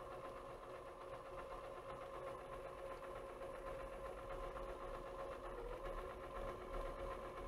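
Faint, steady whir of the Sanjin DX-400 400-disc changer's carousel drive as the turntable spins back to disc position one. The pitch dips briefly about five and a half seconds in.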